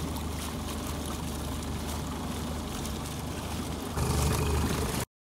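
Evinrude E-TEC 50 two-stroke outboard motor running steadily with the boat under way, with water rushing past. It gets louder about four seconds in, then the sound cuts off suddenly near the end.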